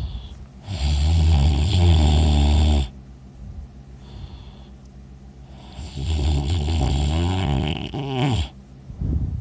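A person snoring very loudly in sleep: two long, low, buzzing snores about three seconds apart, each lasting about two seconds. The second snore ends with a falling pitch, and there is quieter breathing between them.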